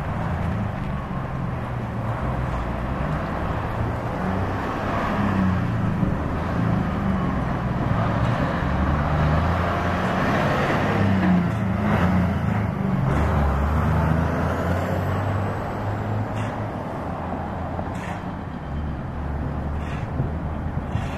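Road traffic passing close by: a pickup and a diesel dump truck driving past with engine hum and tyre noise, loudest about halfway through as the dump truck goes by.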